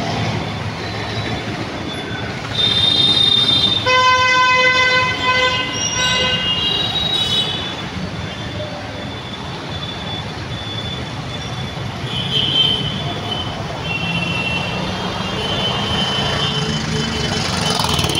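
Busy road traffic with vehicle horns honking: a long horn blast of about two seconds starts around four seconds in. Higher, shorter horn beeps come before it and recur later over the steady rumble of passing vehicles.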